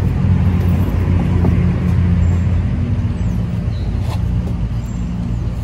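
Steady low hum of a motor vehicle engine running, with road traffic noise.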